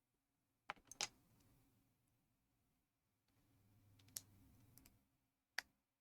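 Plastic building-block pieces clicking as they are handled and pressed together: three sharp clicks close together about a second in, faint rustling of pieces with another click in the middle, and a single click near the end.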